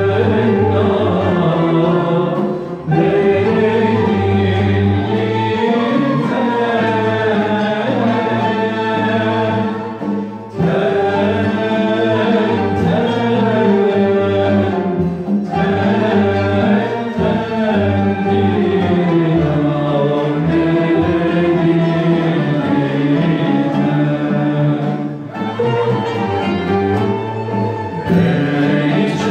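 Turkish classical music ensemble performing a kâr in makam Nihavend: a group of male and female voices singing together, accompanied by a bowed cello. The singing runs in long phrases with a few short breaths between them.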